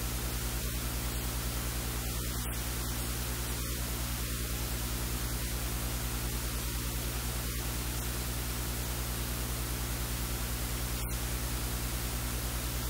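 Steady hiss with a low electrical hum, the noise of the recording chain itself, unchanging throughout and covering any quiet kitchen sounds.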